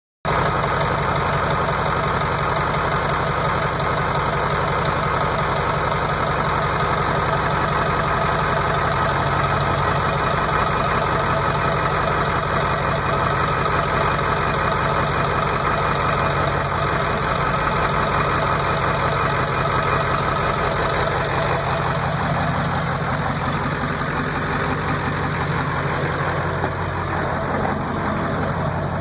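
Truck engine idling, its exhaust exiting through an open Badlanz electric exhaust cutout. The idle is loud and steady, softening a little over the last several seconds.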